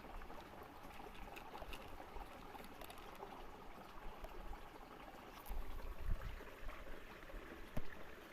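Water trickling and flowing steadily, with scattered small clicks, a brief low rumble about five and a half seconds in and a sharp knock near the end.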